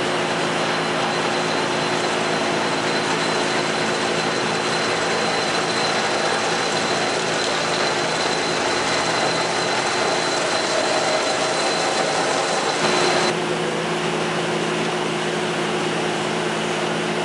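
Powermatic 11-inch by 30-inch engine lathe with a 1.5 hp motor running: a steady machine hum and whir from the motor and headstock. A thin high tone in the mix stops about thirteen seconds in.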